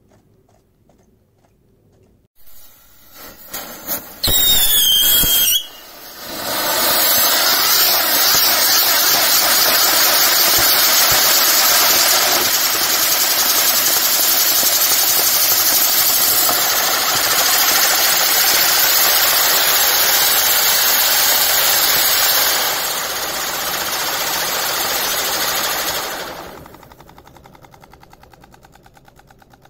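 Celtic Fireworks 'Spin On This' Catherine wheel firework catching with a few crackles and a loud whistle that falls in pitch, then spinning with a loud, steady rushing hiss from its driving fountains. The hiss drops a little in level near the end and then dies away as the wheel burns out.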